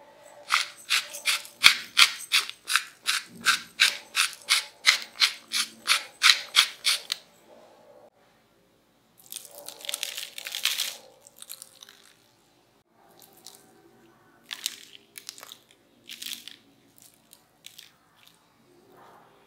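Spices being added to a pile of fried smashed potatoes. First comes a steady run of crisp rasping strokes, about three a second, for several seconds. Then about ten seconds in comes a short sprinkling hiss as paprika goes on, followed by scattered light taps.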